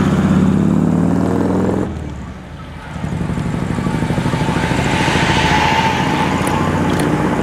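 Big decorated trucks' diesel engines running as they roll slowly toward the camera. The sound drops away sharply about two seconds in, then another truck's engine comes up and gets louder.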